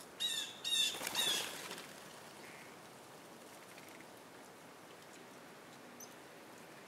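A bird gives three short, trilled calls in quick succession, over in about a second and a half.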